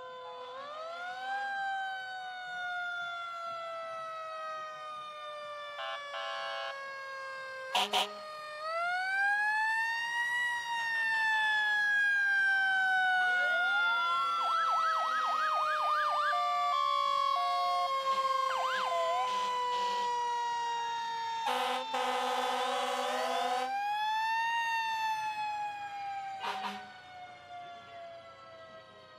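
Emergency vehicle sirens wailing, several at once, each rising over a couple of seconds and then falling slowly in a long sweep, with a faster warbling siren briefly about halfway through. Short horn blasts sound about six and eight seconds in, and a longer horn blast of about two seconds comes about two-thirds of the way through.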